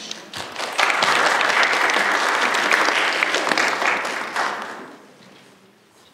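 Audience applauding, rising quickly about a second in, holding for a few seconds and dying away.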